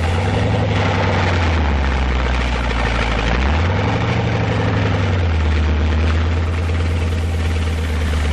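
Heavy engine of an M4 medium tank fitted with a bulldozer blade, running steadily; the engine note rises about three and a half seconds in and settles back down about five seconds in.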